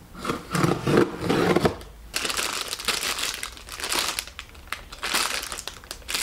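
Clear plastic wrapping crinkling as a bagged item is picked up and turned over in the hands, a dense run of crackles, after about two seconds of lower rustling and handling from the knee pads being taken off.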